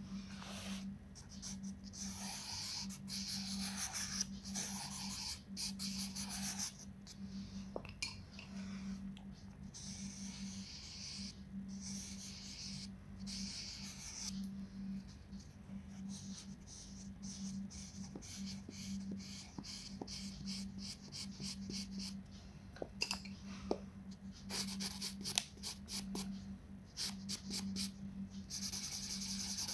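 Coloured pencil and wax crayon rubbing on a colouring-book page in back-and-forth shading strokes, a dry scratchy sound that comes in runs, with a quick series of short strokes near the end.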